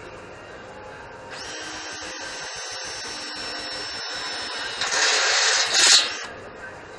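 Cordless drill spinning up about a second in and boring into the steel angle-iron cart frame: a steady whine that gets louder and harsher about five seconds in, then stops shortly after.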